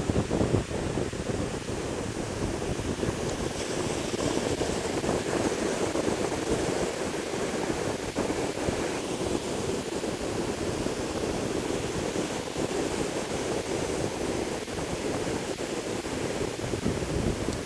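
Ocean surf washing steadily onto a beach, an even rushing noise, with wind on the microphone.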